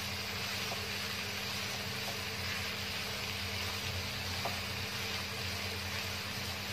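Shredded jicama frying with a steady hiss in a wok as it is turned with a wooden spatula, with a few faint ticks from the stirring. A steady low hum runs underneath.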